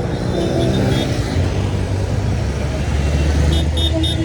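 Street traffic: a motor vehicle's engine running close by with a steady low hum, and a quick run of short, high beeps near the end.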